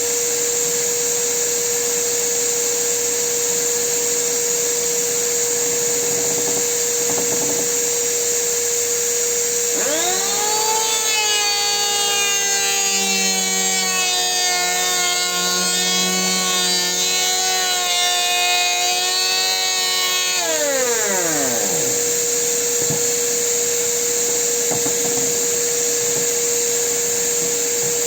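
A steady machine hum with a high hiss runs throughout. About ten seconds in, the motor of a Makita electric hand planer spins up with a rising whine, runs for about ten seconds with slight changes in pitch, then is switched off and winds down with a falling whine.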